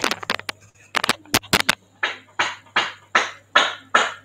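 A steady beat of short, sharp strokes, about two and a half a second, begins about two seconds in after a few scattered clicks, with a low hum underneath.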